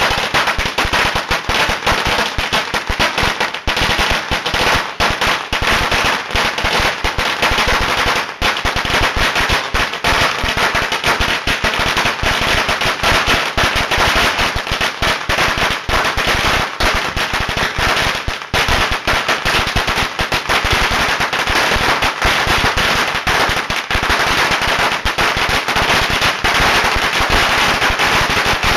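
A long string of firecrackers going off on the ground: a continuous rapid rattle of sharp cracks, too close together to count, without a pause.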